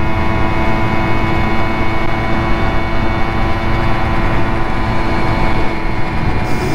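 Simson two-stroke moped engine running at a steady speed while riding, with wind rumble underneath.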